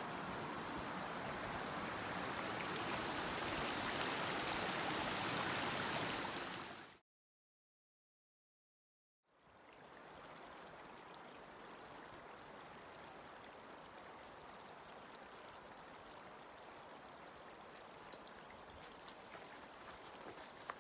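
Steady outdoor rushing noise that is louder for the first few seconds, then drops out to dead silence for about two seconds. After that comes a quieter steady rush, with footsteps and trekking-pole clicks on the trail coming closer near the end.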